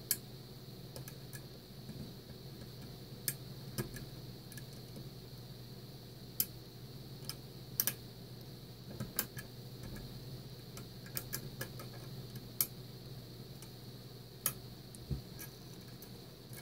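Irregular small metallic clicks and ticks of a lock pick working the pins of a Mul-T-Lock Interactive cylinder under tension, its serrated pins catching as they are lifted.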